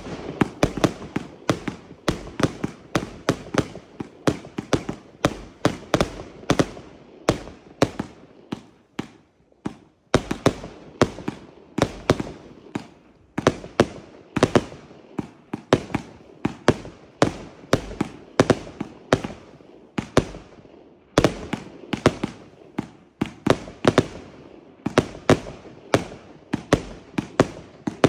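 Funke Yggdrasil 100-shot compound firework cake firing rapidly: a fast string of sharp launch and burst bangs, about two to three a second, with a short lull about nine seconds in.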